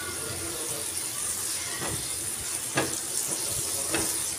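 Chicken pieces sizzling steadily in hot oil in a non-stick frying pan while being stirred with a spatula, with two sharp clacks of the spatula against the pan near the end.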